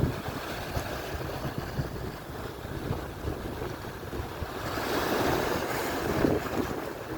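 Atlantic surf washing on the shore, with a wave surging in louder from about halfway through. Wind buffets the microphone with a low rumble.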